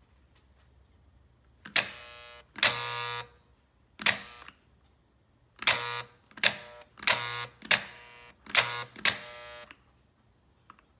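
Rebuilt American Flyer 26742 track switch solenoids being thrown back and forth from the controller, about nine times: each throw a sharp clack followed by a short electrical buzz while the button is held.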